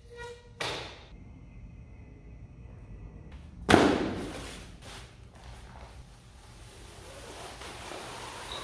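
A loud thud about four seconds in as a projector screen's nylon carrying bag lands on the floor, echoing in a large hall. A short clatter comes near the start, and rustling handling noise follows the thud.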